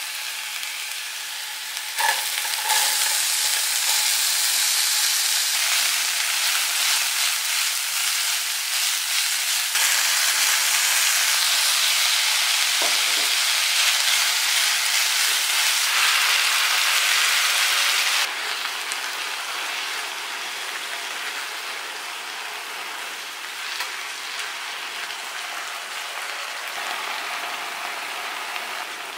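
Minced garlic, then diced onion and bell pepper, sizzling in olive oil in a frying pan and stirred with a spatula. The steady sizzle jumps in level at several cuts. It is quieter for the last ten seconds or so, with chopped tomatoes in the pan.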